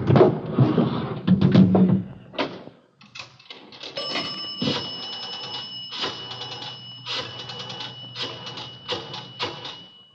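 Radio-drama sound effect of a pay telephone being used: a clatter as the coin goes in, then a rotary dial turned and clicking back in several separate runs over a thin steady whine.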